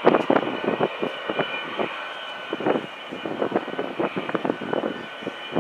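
Boeing 727-200F's Pratt & Whitney JT8D engines running as the jet rolls out on the runway: a steady high whine over uneven, choppy noise.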